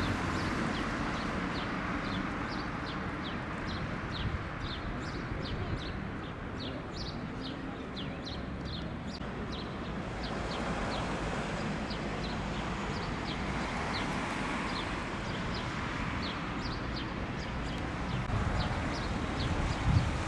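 Small birds chirping in many short, high chirps over a steady background rush of outdoor noise.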